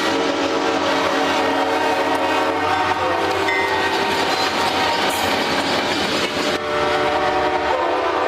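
Several train air horns sounding at once, layered over one another into a loud, continuous, dissonant chord. The chord shifts as horns drop in and out about three and six and a half seconds in.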